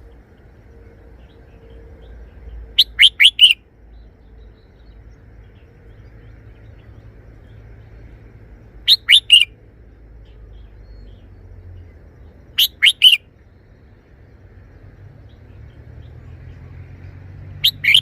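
Red-whiskered bulbul singing its short three-syllable song phrase, four times a few seconds apart, each phrase a quick run of three or four clear notes.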